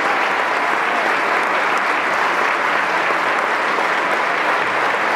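A large concert audience applauding, the clapping dense and steady throughout.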